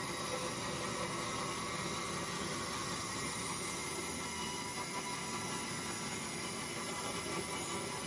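Horizontal band sawmill running steadily with its band blade cutting lengthwise through a log: an even, unbroken hiss with faint steady tones in it.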